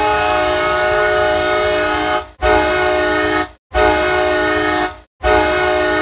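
Ice hockey arena goal horn, dry with no reverb, sounding a loud, steady blast of several tones at once. It cuts out briefly three times, about two seconds in and then roughly every second and a half, restarting at once each time.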